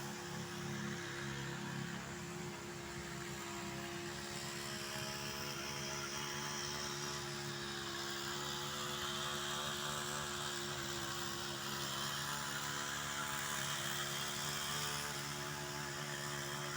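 Steady motor hum: several unchanging tones with a hiss over them, like an engine or motor running at a constant speed.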